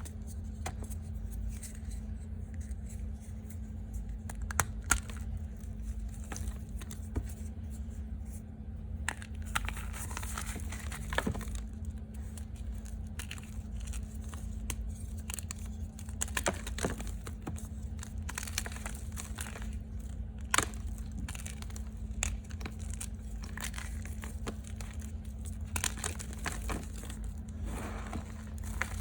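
Reformed gym chalk being bitten and chewed close to the microphone: irregular dry crunches and crackles, a few sharper than the rest, over a steady low hum.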